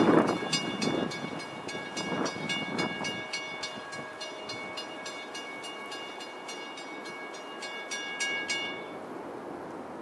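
A railroad grade-crossing bell ringing in rapid, evenly repeated strokes, which stop about nine seconds in. Wind gusts buffet the microphone in the first three seconds.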